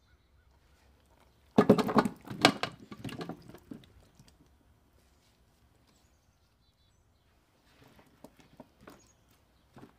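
Seasoned, oiled chunks of potato, corn, squash and peppers tipped from a glass bowl into a stainless steel roasting pan: a loud tumble of many knocks lasting about two seconds. Near the end, a spoon moves the vegetables around with light clicks against the metal pan.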